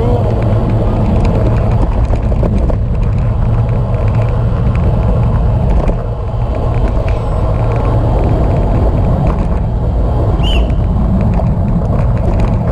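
Steady low rumble of wind buffeting the microphone of a camera riding on a moving bicycle, mixed with tyre noise on the road. A short high chirp about ten seconds in.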